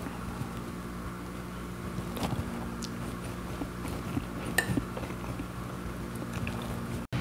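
A fork clicking against a plate of cut fruit a few times, about two seconds in and again near five seconds, as pieces are speared and lifted, over a steady low hum.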